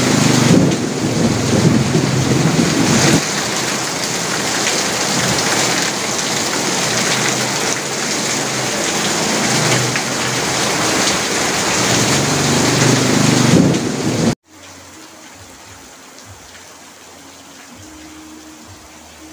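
Heavy rain beating on an asbestos (fibre-cement) sheet roof, a loud dense hiss with spells of low rumbling near the start and again just before it cuts off. About fourteen seconds in it drops abruptly to a much quieter, lighter rain.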